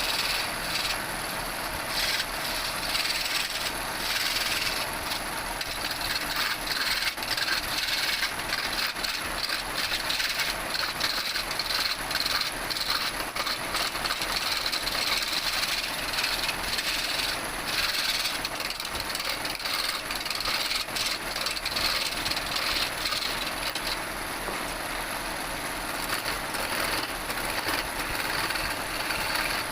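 Wood spinning on a lathe, with a turning tool cutting into it: a steady hissing scrape that flickers with fine rapid scratches.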